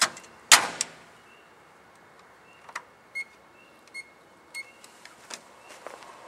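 A sharp knock or click, like a microwave door or the bulb being set down, then three short electronic beeps as the microwave's keypad buttons are pressed.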